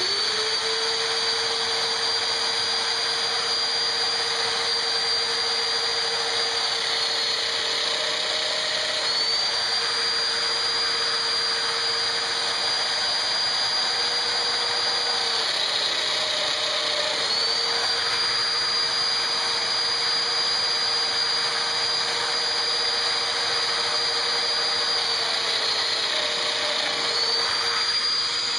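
Festool Domino joiner running steadily as it plunges to cut loose-tenon mortises in a turned wooden leg. Its pitch drops briefly about every eight seconds with each plunge, over the hiss of the dust extraction drawing through its hose.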